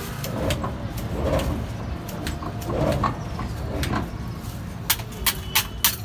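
Scraping and rubbing on the frozen steel drum of a roller ice cream machine over a steady low hum, followed near the end by a quick run of sharp taps, about four a second.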